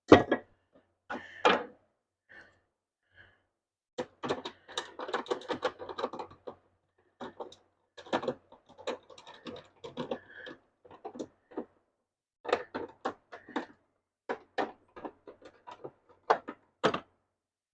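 Irregular knocks, clicks and clatter of cedar boards and hand tools being handled and set down on a workbench, in loose clusters of quick taps.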